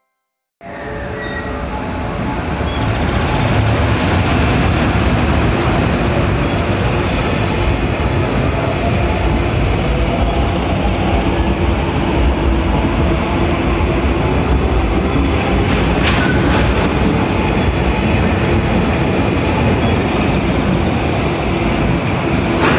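A long freight container train running through a station without stopping: a steady, loud rumble of wheels on rail that starts suddenly about half a second in and swells over the next few seconds.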